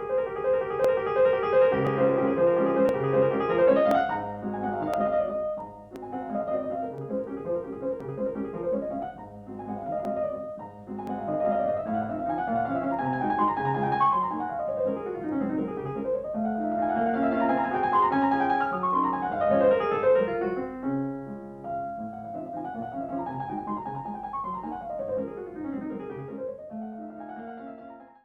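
Background piano music: a solo piano plays flowing rising and falling runs over a lower accompaniment. It stops near the end.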